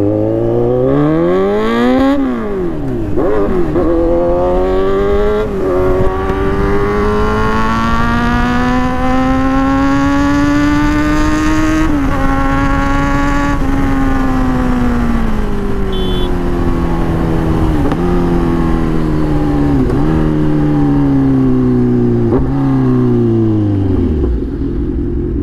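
Kawasaki Z900's inline-four through an aftermarket full-system exhaust under hard acceleration, heard from the rider's seat. It revs up and drops back with several quick upshifts in the first few seconds, then pulls steadily to a peak about twelve seconds in. The revs then wind down in steps as the bike slows, falling off near the end.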